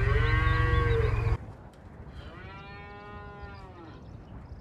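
Cows mooing: one drawn-out moo over a heavy low rumble that breaks off abruptly about a second in, then a second long moo that rises and falls in pitch.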